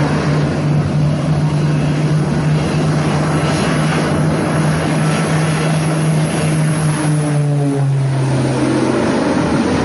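Twin-engine propeller airplane making a low pass, its engines and propellers droning loudly with a steady hum. The pitch drops as it passes overhead about eight seconds in.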